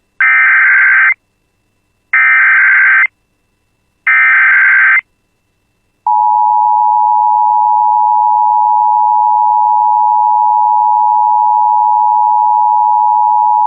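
Emergency Alert System header: three short, harsh bursts of digital data tones, each about a second long and a second apart, followed about six seconds in by the long, steady EAS attention tone that announces a tornado warning.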